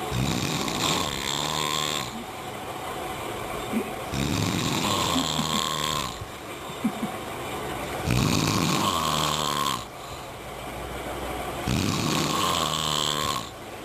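A sleeping person snoring loudly and rhythmically: four long snores of about two seconds each, one roughly every four seconds, with quieter breaths between them.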